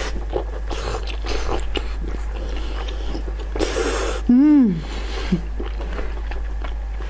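Wet tearing, biting and mouth-smacking sounds of eating a sauce-covered braised pork intestine roll (kun chang), with puffs of breath blown onto the hot food. About four seconds in, a short loud hum rises and falls in pitch.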